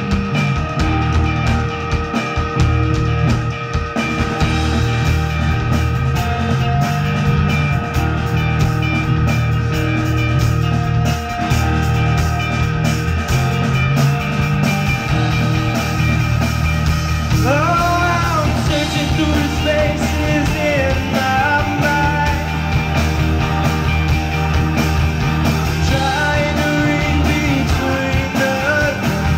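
Rock band playing live on electric guitars, bass guitar, drum kit and keyboard, loud and steady throughout. About two-thirds of the way through a high note glides up and back down.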